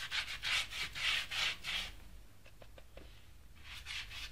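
Quick rubbing or scraping strokes by hand, several a second. They pause for about a second and a half in the middle, where a few faint ticks are heard, and start again near the end.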